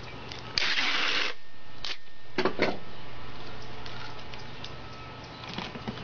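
Clear packing tape pulled off the roll in one long pull about half a second in, followed by a few knocks and rubs of hands on the cardboard box.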